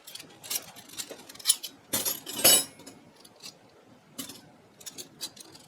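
Stainless steel and silver-plated flatware clinking together as pieces are picked through and set down, a run of sharp clinks with the loudest cluster about two seconds in.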